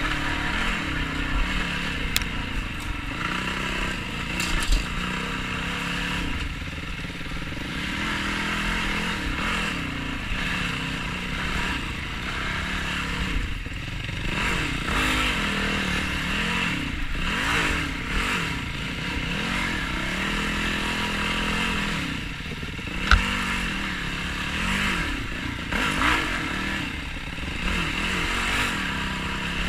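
Yamaha YFZ450R quad's single-cylinder four-stroke engine revving up and down repeatedly as it is ridden over rough ground, with now and then a sharp knock.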